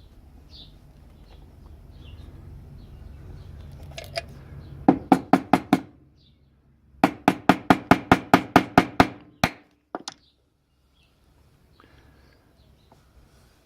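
Rapid metallic tapping on a padlock part during reassembly: a short run of five sharp ringing strikes, a pause, then about ten more at roughly five a second, followed by two single knocks. Faint bird chirps sound in the background.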